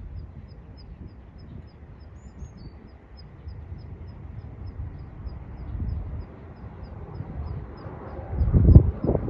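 Wind buffeting the microphone in irregular low gusts, the strongest about eight and a half seconds in, over the distant rumble of a jet airliner taking off and climbing away. A faint high tick repeats about three times a second.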